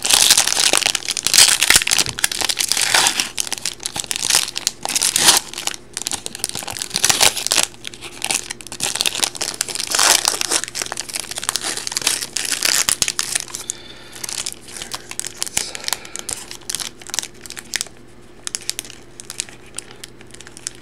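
Foil wrapper of an Upper Deck Stature hockey card pack crinkling and tearing as it is opened by hand. The crackling is dense for the first thirteen seconds or so, then eases to lighter rustling.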